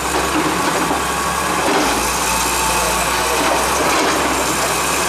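An engine running steadily under a dense, even wash of street noise.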